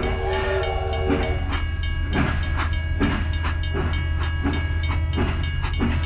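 Train sound: a whistle tone in the first second over a steady low rumble, then rhythmic clacking of wheels on rail joints, about two or three clacks a second.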